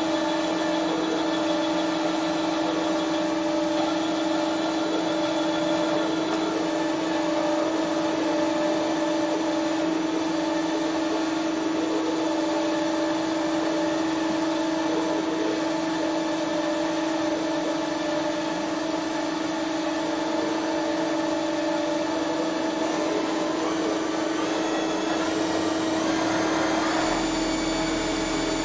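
Doosan G220 CNC lathe running, its spindle turning the empty chuck: a steady machine hum with a strong even tone and fainter higher tones. Near the end some of the higher tones shift and a deep hum joins in.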